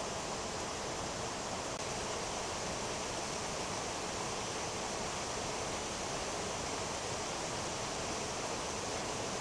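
Rain falling steadily on trees and dense foliage, an even hiss with no breaks.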